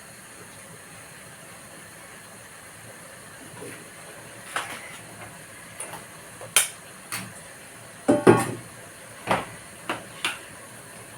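Cookware and kitchen utensils clinking and knocking: about eight separate short knocks that start about four seconds in, the loudest a close pair a little past the middle.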